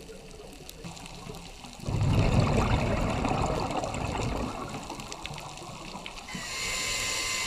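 Scuba diver breathing through a regulator underwater: a loud rush of exhaled bubbles starting about two seconds in and fading over a couple of seconds, then a hissing inhale near the end.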